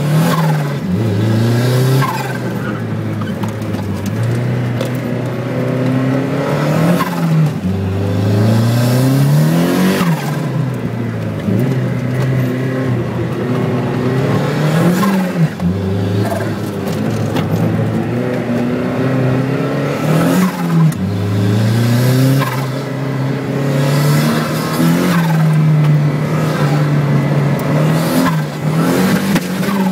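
Turbocharged Speedster sports car's engine heard from inside the cabin, driven hard around a tight circuit: the revs climb under acceleration and then drop away sharply, about six times, as the car lifts off and brakes for the bends.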